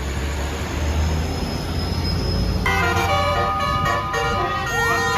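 Tour bus engine rumbling low, then about two and a half seconds in a basuri multi-tone 'telolet' horn bursts into a melody of stepped notes, with two quick rising slides near the end.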